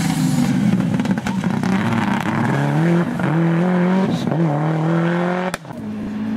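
Subaru Impreza STI rally car's turbocharged flat-four engine accelerating hard away, its pitch climbing and dropping through several gear changes. Near the end the sound cuts off abruptly and another car's engine comes in more quietly.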